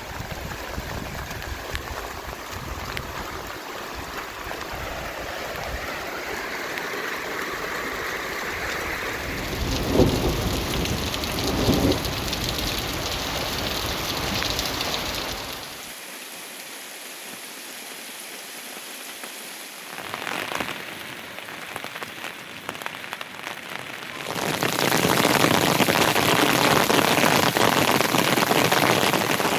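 Heavy rain falling, a steady hiss that changes in strength several times: weakest around the middle and loudest in the last few seconds, with two brief louder knocks about a third of the way in.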